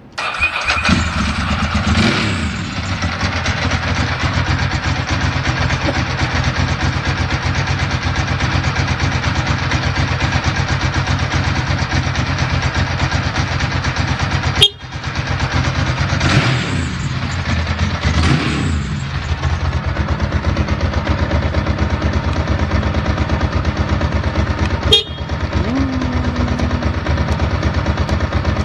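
Ducati Monster S4's L-twin engine catching at once on the starter and settling into a steady idle, with a short blip of the throttle about two seconds in and two more around the middle. A sharp click is heard about halfway through and another near the end.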